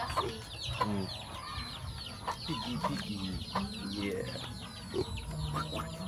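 Chickens clucking, with a steady stream of short, high, falling chirps.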